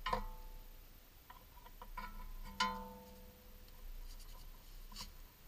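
A long metal tool striking and clinking against the steel steering knuckle while working the ABS wheel-speed sensor out of its bore. There are two ringing metallic clinks, one at the start and a louder one about two and a half seconds in, with lighter ticks and clicks between and near the end.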